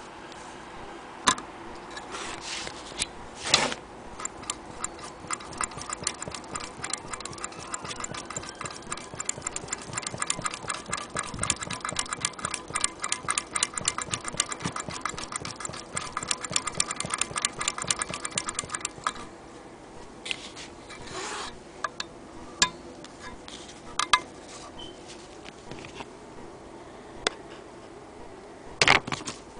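Antique Willcox & Gibbs single-thread chain-stitch sewing machine stitching through fabric, its mechanism ticking fast and evenly for about fifteen seconds before stopping. A few separate clicks and knocks come before and after the run of stitching.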